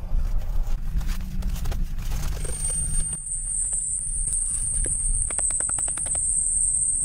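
A steady high-pitched insect buzz starts about two and a half seconds in and holds. It lies over a low rumble in the first three seconds and a quick run of light taps about five seconds in.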